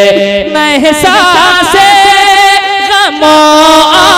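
A man singing an Urdu naat into a microphone, holding long ornamented notes that waver in pitch, with a sliding drop about three seconds in.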